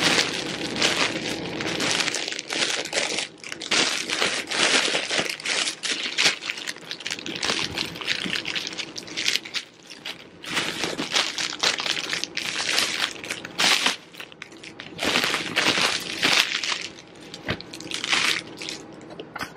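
Plastic packaging, a poly mailer and a clear plastic bag, crinkling and rustling as it is handled by hand, in irregular spells that come and go.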